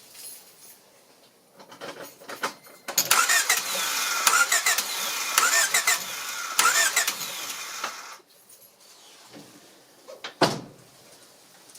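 1993 Honda Civic's starter cranking the engine for about five seconds without it catching: there is no spark, which the mechanic puts down to a bad ignition coil. A single sharp knock follows near the end.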